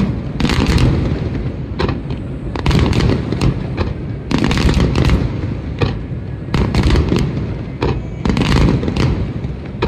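Aerial fireworks display: shells bursting one after another in rapid succession, with deep booms and sharp crackling reports over a continuous low rumble.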